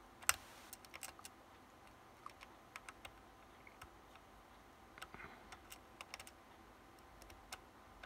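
Faint, irregular light clicks and ticks of a small screwdriver and screw being fitted into the laptop CPU cooler's mounting arm, with one sharper click about a third of a second in.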